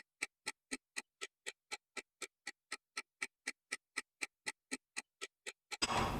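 Clock ticking, evenly about four ticks a second with dead silence between the ticks, stopping shortly before the end.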